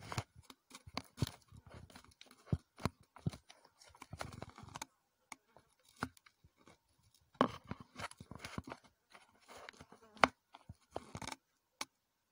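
Close scratching and rustling with sharp clicks, in two irregular spells with a sparser gap around five to seven seconds in.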